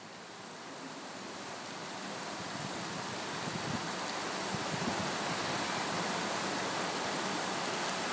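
Heavy rain pouring down as a steady hiss, rising from quiet over the first few seconds and then holding even, with a few soft low rumbles in the middle.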